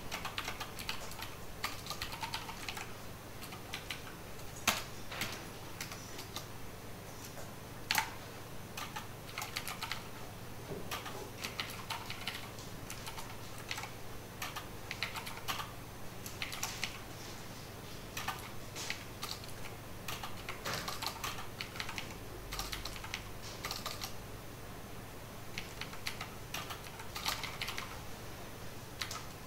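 Typing on a computer keyboard: irregular runs of key clicks broken by short pauses, with a couple of heavier keystrokes around five and eight seconds in, over a faint low steady hum.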